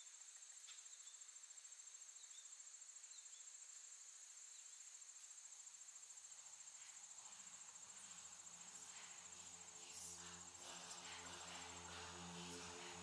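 Faint, steady high-pitched trilling of insects such as crickets. From about halfway a low sustained musical drone fades in and grows louder toward the end.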